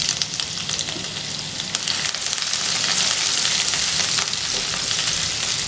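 Chopped garlic and ginger sizzling in hot oil in a nonstick frying pan, a steady hiss full of small crackles, stirred with a silicone spatula. The sizzle grows a little louder toward the middle.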